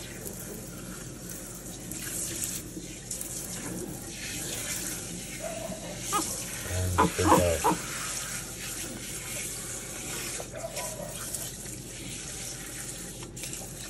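Pull-out sink sprayer running a steady spray of water over a capuchin monkey's wet fur in a sink, with splashing into the basin. About halfway through, a brief voice sounds over the water.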